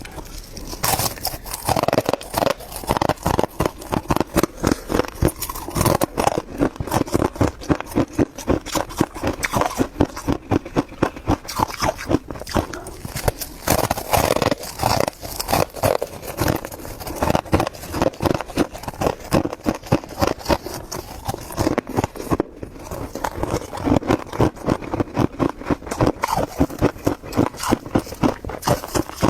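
Freezer frost being chewed close to the microphone: a rapid, continuous run of loud wet crunches, several bites a second with no break.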